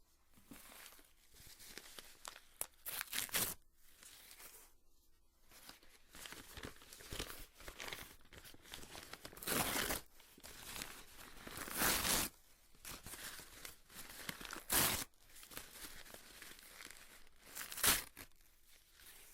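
Paper being torn by hand: a run of rips, with rustling and crinkling between them and about five louder tears at irregular intervals.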